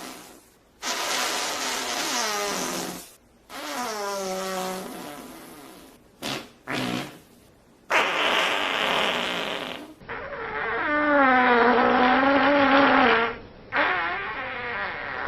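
A series of fart sound effects, one after another, about six in all: several long ones with a wavering pitch, two short quick ones around six to seven seconds in, and a long drawn-out one with a rising and falling pitch near the end.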